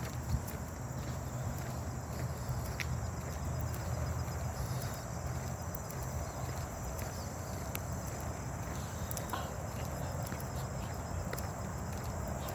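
A hiker's hard, heavy breathing close to the microphone, with footsteps on the trail making scattered clicks.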